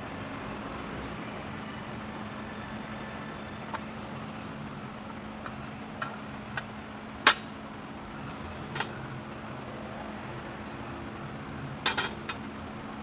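Small metal parts and hand tools clinking and tapping on a workbench a handful of times over a steady background hum, with the loudest knock about seven seconds in and a quick cluster of clinks near the end.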